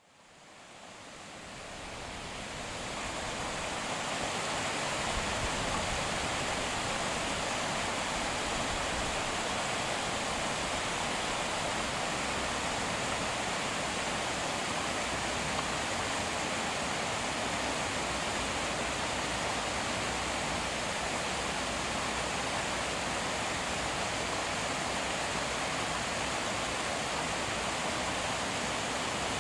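A steady, even rushing hiss, fading in from silence over the first three or four seconds and then holding constant.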